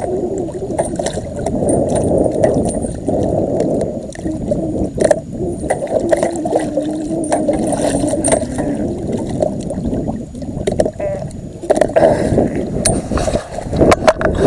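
Water splashing and sloshing at a boat's side as a big blue catfish thrashes at the surface, over a steady low rumble; the splashes and knocks grow sharper and more frequent after about twelve seconds.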